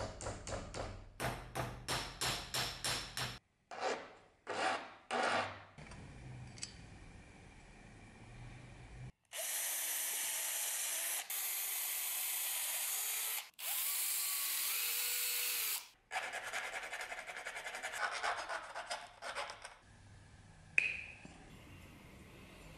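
Cordless drill boring through a brass fitting, run in three bursts of about two seconds each, the motor note rising as it spins up. Before and after the drilling come quick rasping strokes of hand work on metal, several a second.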